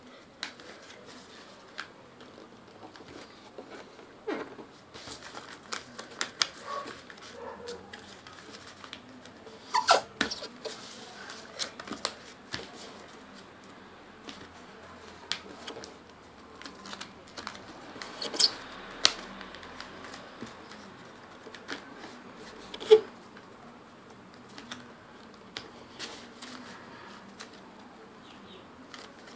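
A sheet of paper being folded and creased by hand against a wooden tabletop: irregular rustling and crinkling with scattered small clicks and taps, and a few sharper snaps, the loudest about ten seconds in, around eighteen seconds, and about twenty-three seconds in.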